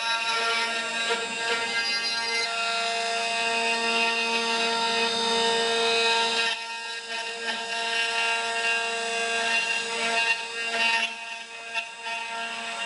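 CNC router spindle whining steadily as its small bit carves a wooden workpiece, with the hiss of cutting wood. The sound drops and turns rougher about six and a half seconds in.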